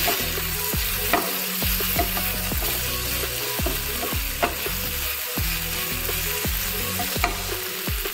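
Chicken pieces sizzling as they fry in oil in a non-stick frying pan, stirred with a wooden spatula that clicks against the pan a few times.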